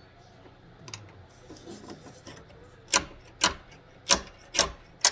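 Handling noise of hard objects being picked up and set down: light rubbing, then five sharp knocks about half a second apart in the second half.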